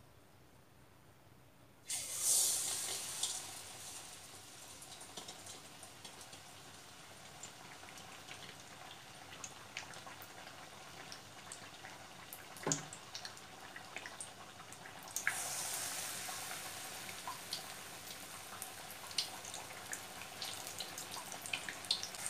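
Batter-coated boiled egg pieces dropped into hot deep-frying oil: a sudden loud sizzle about two seconds in that settles into steady crackling frying, with a second surge of sizzling about two-thirds of the way through as more pieces go in. A single sharp knock near the middle.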